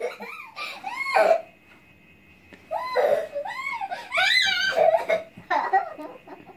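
A child's high-pitched giggles and squeals, coming in several short bursts with quiet gaps between.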